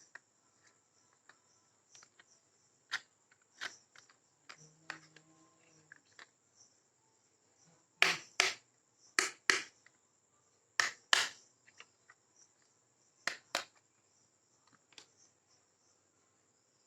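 Marbles clicking and knocking along a handmade marble run of rain gutter and wooden rails: scattered light clicks, then louder sharp clacks in close pairs over several seconds from about halfway in. A steady high insect chirring runs underneath.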